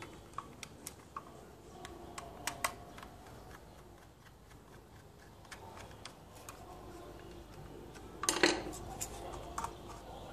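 Small clicks and taps of hard plastic toy revolver parts being handled and fitted together, with a louder rattling clatter about eight seconds in.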